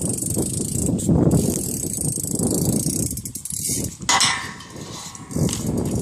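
BMX bike being ridden, with a steady rumble of rolling noise. A sharp knock comes about four seconds in, then a quieter stretch before the rumble picks up again near the end.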